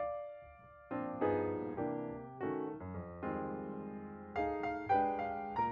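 Background music: a gentle piano tune, notes struck one after another, with a brief lull about half a second in before the melody resumes.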